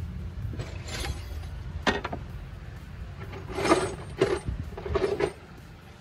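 Screwdriver and hand work on the fuel injector return hoses and clips of a Mercedes W123 300D diesel engine: a sharp click about two seconds in, then three short scraping squeaks as the rubber hoses are worked on and off the injectors. A low steady rumble runs underneath.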